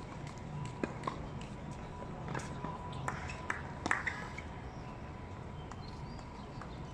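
Outdoor hard tennis court between points: scattered faint taps and knocks, from tennis balls bouncing and footsteps on the court, over a steady background noise with a faint steady tone.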